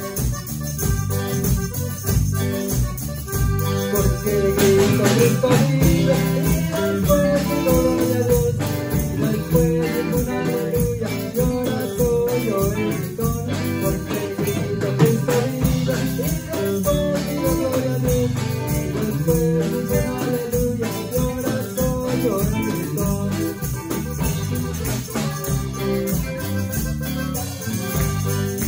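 Live band music: an accordion with electric guitar, bass guitar and drum kit playing at a steady beat, with cymbals ticking.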